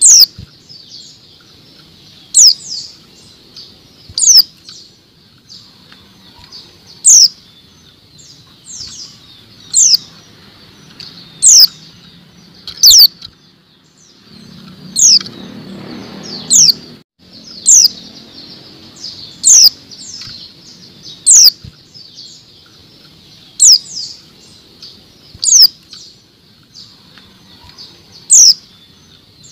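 Female white-eye (pleci) calling: short, high notes that sweep down in pitch, given singly or in pairs about every two seconds. It is the kind of female call that keepers play to male white-eyes to bring them into song.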